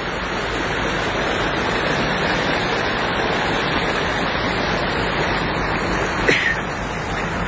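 Steady rushing of muddy floodwater running through landslide debris, with a short sharp knock about six seconds in.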